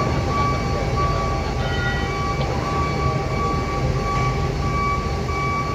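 Steady low rumble of heavy diesel machinery during a ro-ro ferry's vehicle unloading, with a high tone beeping on and off over it.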